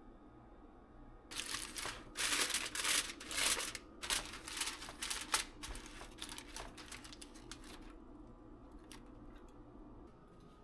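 A run of quick scratchy, crinkling rustles lasting about six seconds, then a few light clicks near the end.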